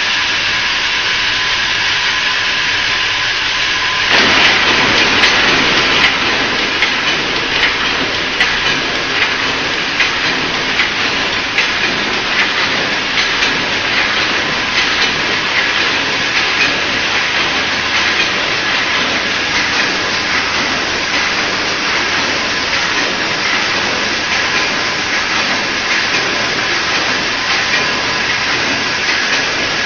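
Double-twist hexagonal wire netting machine running: a steady loud mechanical hiss with a high tone, under a fast, irregular metallic clatter that grows louder about four seconds in.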